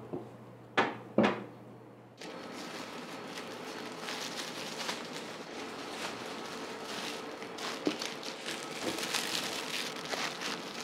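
Two sharp knocks about a second in, then thin plastic bread bags crinkling and rustling as breads are slipped into them by hand, over a faint steady hum.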